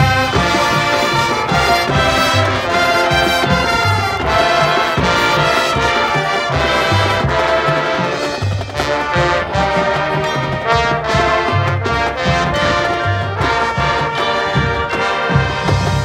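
Marching band playing: the brass section sounds loud, sustained chords over a steady pulse of low drum hits.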